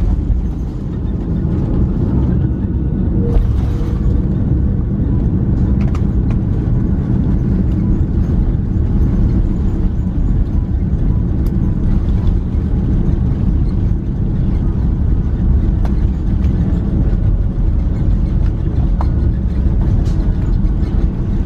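Airbus A330 cabin noise heard from a window seat: a steady, loud low rumble of the jet engines and airflow, with a few faint ticks.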